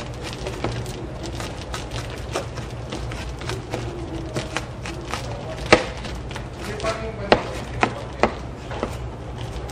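Kitchen utensil clatter: scattered sharp knocks of tools against pot and counter as flour is added to a pan and food is handled, the loudest knock about halfway through and a few more close together near the end, over a steady low hum.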